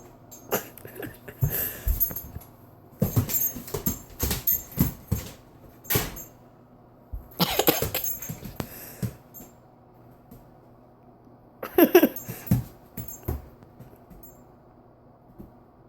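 A dog at play, making irregular bursts of quick knocks and scuffles, the loudest about twelve seconds in; it is fairly quiet for the last couple of seconds.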